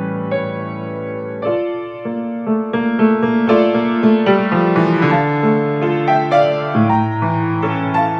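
Instrumental piano music: sustained chords under a melody played in separate notes, with the bass changing under it about a second and a half in and again near the end.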